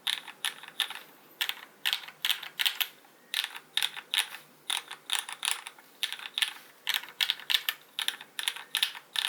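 Typing on a Canoe Gen.2 custom mechanical keyboard with lubed Cherry MX Black Hyperglide linear switches, an aluminium plate and GMK doubleshot ABS keycaps: quick runs of key clacks with short pauses between them.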